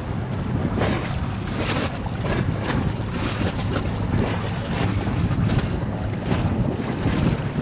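Gusty wind buffeting the microphone over choppy sea, with a steady low rumble from the approaching high-speed passenger boats.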